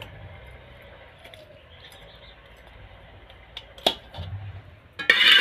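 Metal ladle clinking and scraping against a metal cooking pot: a sharp clink just under four seconds in, then a louder scrape and clatter near the end.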